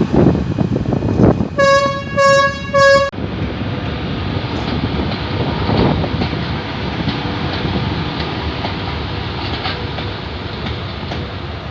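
Train horn sounding three short blasts about a second and a half in, each one clear steady note, over the continuous rumble of a train running on the rails.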